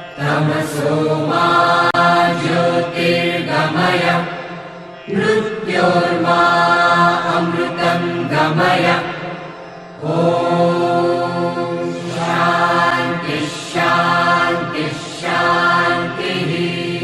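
Devotional Hindu mantra chanting, sung as music in long melodic phrases, with short pauses about five and ten seconds in.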